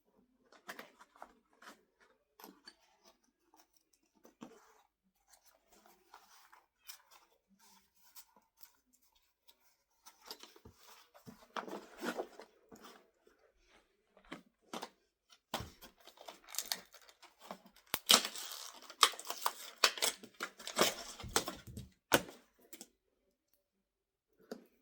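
New tools and their packaging being handled: scattered clicks and rustles, then longer stretches of tearing and rustling in the second half, the loudest part.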